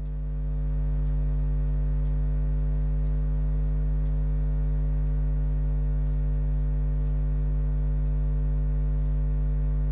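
Steady electrical mains hum, a low buzz with a stack of higher overtones, growing a little louder over the first second and then holding even.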